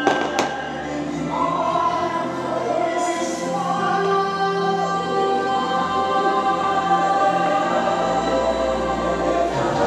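Fireworks show soundtrack: music with a choir singing long held chords, and a single sharp crack about half a second in.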